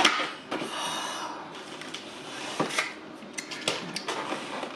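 Close-miked eating: a person chewing a piece of sushi roll, with mouth sounds and a few sharp clicks.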